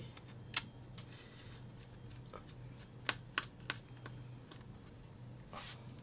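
Irregular light clicks and taps, about half a dozen, from a small screwdriver and a tiny screw being handled against a laptop's bottom panel and a table, over a faint steady low hum.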